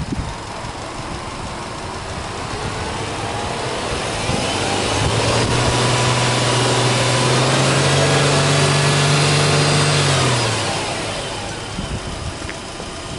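Subaru Legacy B4 2.0GT's turbocharged flat-four engine revved with the car standing: the revs climb over a few seconds, hold steady for about five seconds, then drop back toward idle.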